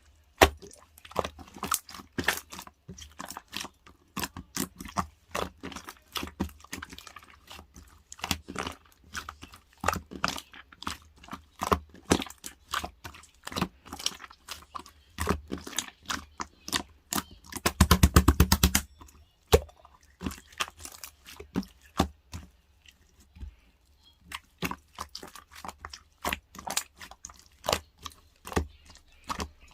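Crunchy chewing, most likely a small pet crunching food: many irregular sharp crunches, with a rapid rattling run of clicks lasting about a second a little past halfway.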